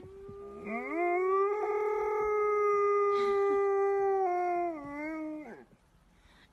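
Husky howling: one long howl that rises at the start, holds a steady pitch, then steps down and falls away about five and a half seconds in.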